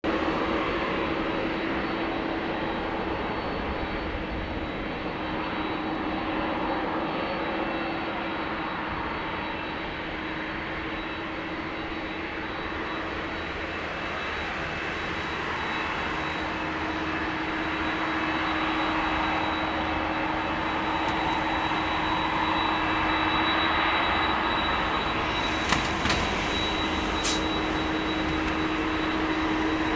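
Boeing 767-300ER's two jet engines running at taxi power as the airliner taxis: a steady jet whine over a low rumble that swells slightly past the middle. Two sharp clicks come near the end.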